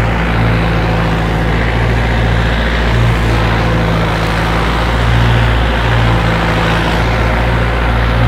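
Mahindra Arjun Novo 605 4x4 tractor's 57 hp turbo diesel engine, its fuel injection pump modified, running steadily under load while pulling a tine cultivator through the soil.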